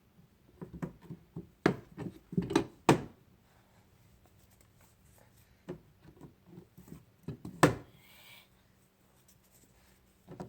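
Toy kitchen-workbench pieces knocking and clicking as a child handles them, with a cluster of sharp knocks about two to three seconds in and a single loud knock later.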